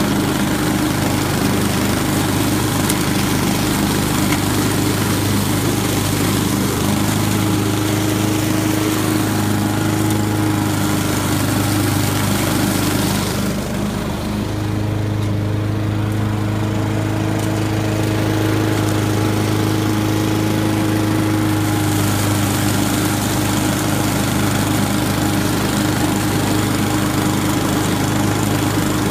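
Honda walk-behind lawn mower's four-stroke engine running steadily as it cuts through fallen leaves on a lawn. The engine note dips briefly about halfway through, and the hiss is quieter for several seconds after.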